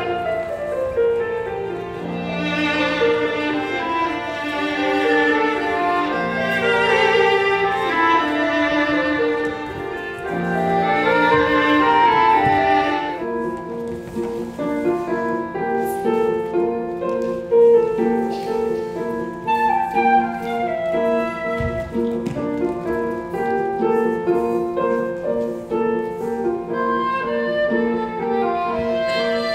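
Contemporary chamber music for piano, viola and flute: long held, wavering melodic lines over piano for about the first thirteen seconds, then a steady pulse of short repeated notes with melody above.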